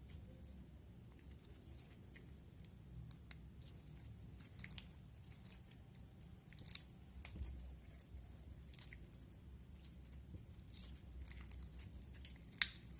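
Slime being squished and worked, making irregular sticky clicks and crackly pops. There are a few sharper snaps, about five, seven and twelve and a half seconds in.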